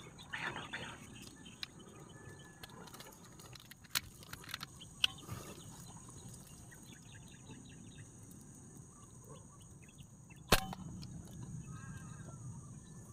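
A PCP air rifle fires once about ten and a half seconds in: a single sharp crack, the loudest sound. Two fainter sharp clicks come about four and five seconds in, and a duck splashes in the water at the start.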